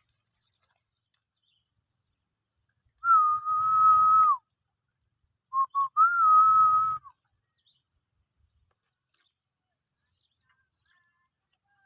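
A person whistling: one long, steady note, then two short notes followed by a second long note.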